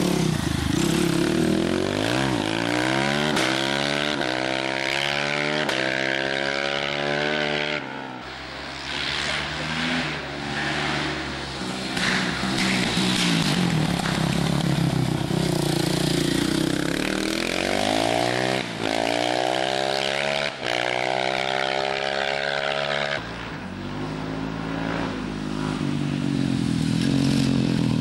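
Supermoto-style racing motorcycles accelerating hard past one after another, each engine revving up in rising sweeps through the gears, with a brief drop in pitch at each gear change.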